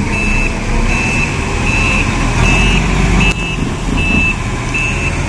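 Diesel forklift reversing alarm beeping steadily, a little over one beep a second, over the low running of the forklift engines.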